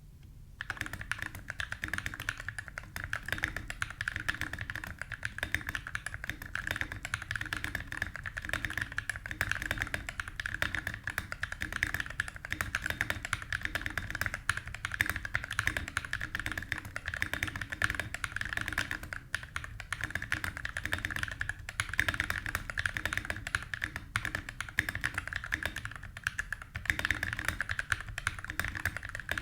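Continuous fast typing on a Drop Carina mechanical keyboard with lubed Drop Holy Panda tactile switches on a copper plate, with no case foam. The keystrokes start about half a second in and run as a dense stream of clicks.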